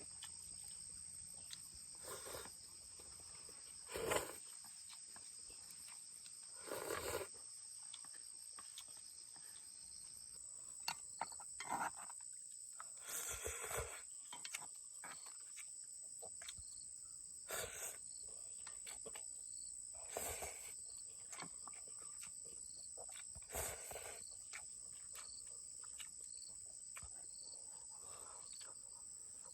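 A steady high-pitched insect chorus in the field, with brief rustles and knocks every few seconds.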